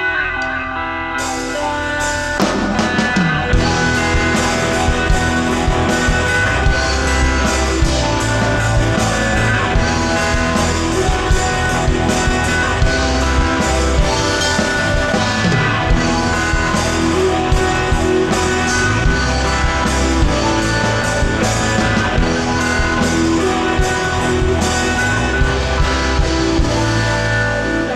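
Rock band playing live: guitar, with the full band and drum kit coming in about two seconds in and keeping a steady beat.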